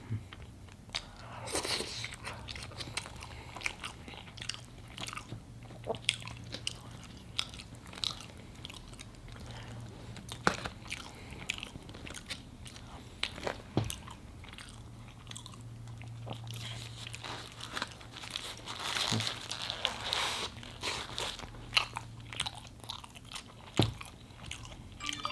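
Close-miked mouth sounds of eating a burger and fries: bites and wet chewing with many small mouth clicks, over a steady low hum.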